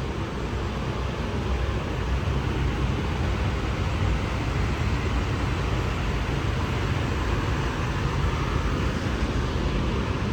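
Paint booth ventilation running: a steady rush of moving air with a low rumble underneath.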